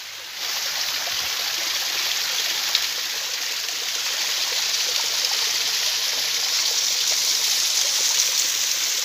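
Small spring-fed rocky stream, water running steadily over stones, starting about half a second in.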